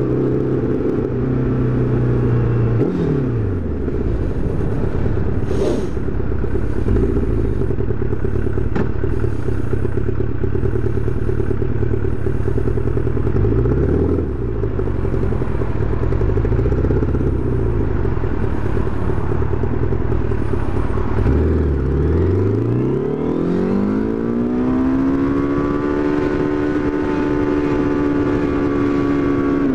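Motorcycle engine heard from the rider's helmet-mounted camera, its revs falling and rising as it rides through slow traffic, with rushing noise over it. A little after two-thirds of the way through the revs climb steadily and hold.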